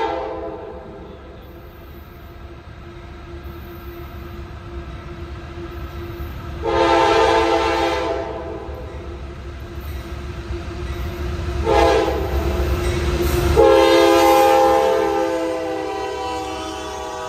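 CSX freight diesel locomotive hauling a loaded coal train, sounding its air horn in several blasts as it approaches. The last blast is long and the loudest. The low rumble of the locomotive and train grows as it draws near and passes.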